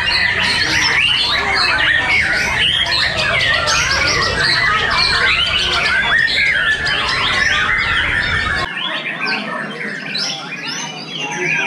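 Many caged white-rumped shamas (murai batu) singing at once in a bird-song contest, a dense tangle of overlapping whistles and chattering phrases. A low background rumble under the song cuts off abruptly about nine seconds in.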